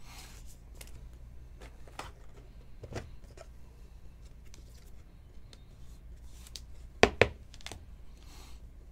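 Stiff, glossy chrome trading cards handled and slid through by hand: soft sliding hisses and scattered light clicks, with two sharp clicks close together about seven seconds in.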